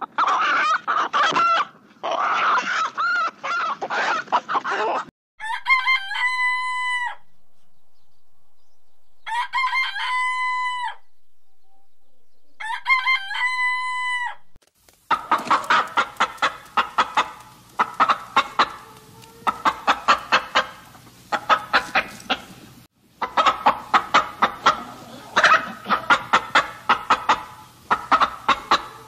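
Rooster calling: a run of quick wavering calls, then three long crows held on a steady pitch a few seconds apart, then fast repeated clucking over the second half.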